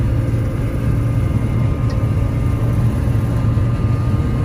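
Combine harvester running steadily during wheat harvest: a loud, even low engine and machinery drone.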